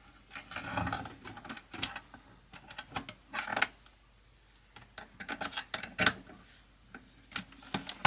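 Scattered plastic clicks and taps with a few brief rustles, irregularly spaced: hands handling the computer and plugging in its new video cable.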